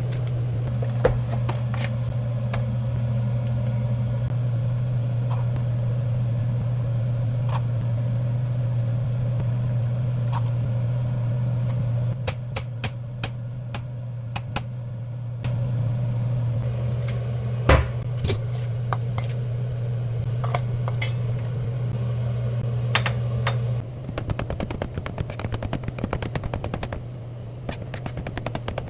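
A steady low hum with scattered sharp crackling pops and clicks; the hum drops out briefly partway through and fades near the end, where the pops come thick and fast.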